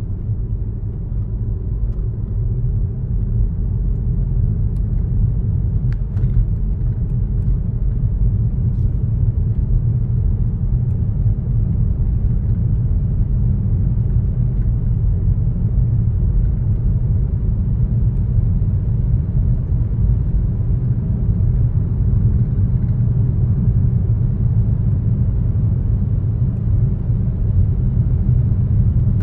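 A car driving along a road: a steady low rumble of engine and tyre noise that holds even throughout.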